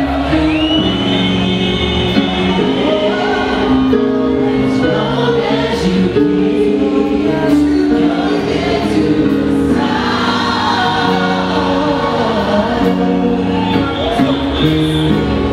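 Gospel choir singing live in full harmony through handheld microphones, with sustained chords over a steady bass-heavy backing.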